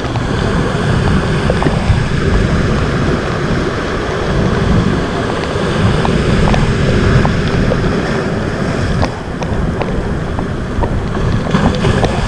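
Wind buffeting the microphone over the steady wash of a rough sea.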